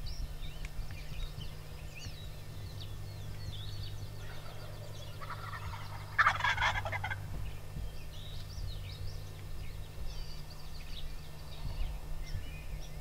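Wild turkey tom gobbling: one loud rattling gobble about six seconds in, lasting about a second, with a fainter lead-in just before it. Small songbird chirps sound throughout.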